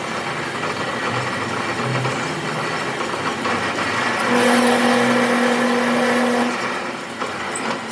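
Steady mechanical running noise. A steady hum comes in about four seconds in and stops about two seconds later.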